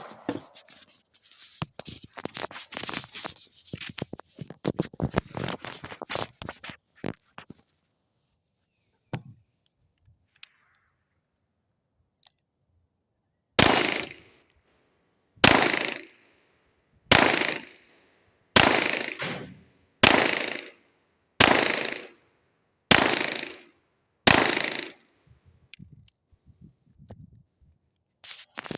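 Several seconds of small clicks and rustling, then eight .22 LR revolver shots fired at a steady pace, about one every second and a half, each followed by a short fading echo.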